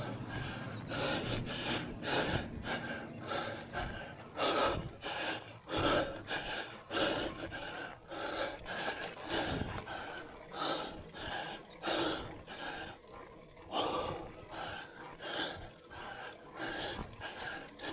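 A cyclist breathing hard, gasping in and out in a steady rhythm of about one to two breaths a second, under the effort of climbing a steep gradient of around 10%.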